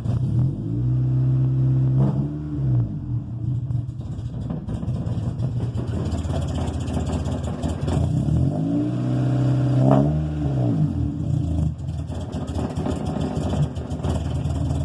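1995 Honda Civic coupe's four-cylinder engine idling unevenly, its revs rising and falling back twice on their own: a hunting, surging idle that runs normal when up and rough when down, a fault the owner has not traced.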